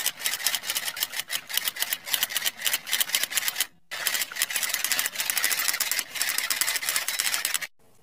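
Typing: a fast, uneven run of key clicks, with a brief pause about four seconds in, stopping just before the end.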